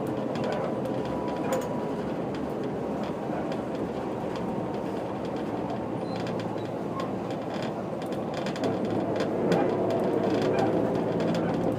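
Inside a 1996 Setra 315 UL bus under way: the diesel engine running with road noise and light rattling from the cabin, getting a little louder about nine seconds in.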